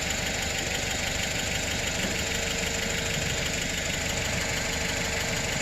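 Steady hum of an idling car engine, even and unchanging.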